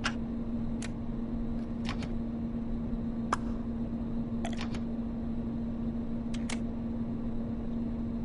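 A steady low hum of one pitch, with about ten sharp clicks at uneven intervals from keys and switches being pressed on the spaceship-bridge control consoles. The loudest click comes about three seconds in.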